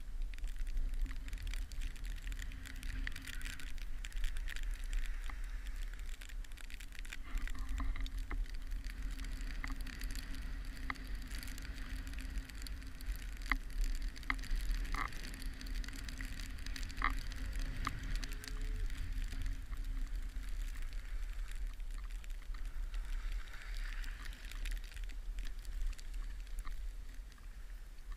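Skis sliding and scraping over packed snow while skiing downhill, with wind buffeting the camera's microphone as a steady low rumble. A few sharp clicks come in the middle.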